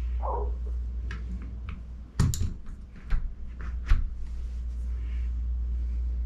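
A few sharp clicks and knocks, about a second apart, from hardware being handled on the electronic deadbolt, over a steady low hum.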